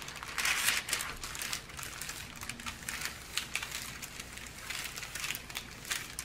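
Clear plastic protective film on a diamond painting canvas crinkling and crackling as hands smooth it flat to press out wrinkles. The crackling is strongest in the first second, then goes on in fainter scattered crackles.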